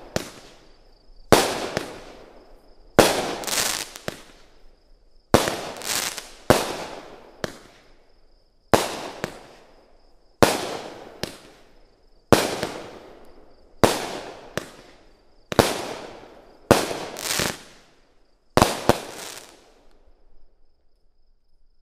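Black Market Fireworks' Getaway Car multi-shot firework firing shot after shot, over a dozen in all, roughly one every one to two seconds. Each is a sharp report followed by a crackling, fizzing tail as the stars burst. The volley ends with a quick final pair near the end.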